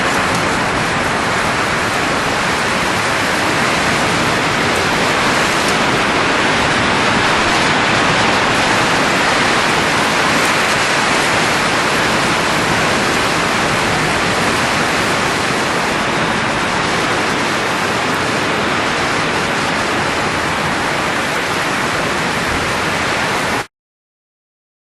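Steady rushing of blowing air, an even hiss with no rhythm or pitch, that cuts off suddenly near the end.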